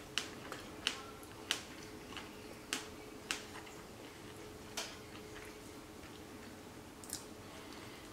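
Someone chewing bread: a handful of light, irregular mouth clicks and smacks, most of them in the first three seconds, over a faint steady hum.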